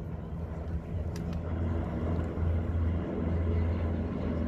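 Formation of four North American SNJ/T-6 Texans passing overhead, their Pratt & Whitney R-1340 nine-cylinder radial engines droning together and growing louder as the planes approach.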